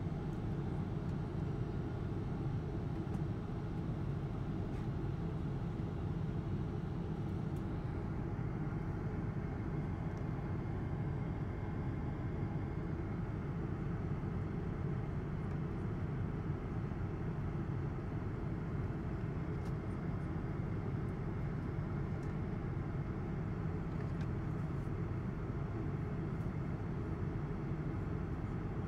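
Steady low rumble of cabin noise inside a Boeing 777-200 airliner in high-altitude flight: engine and airflow noise heard from the seat.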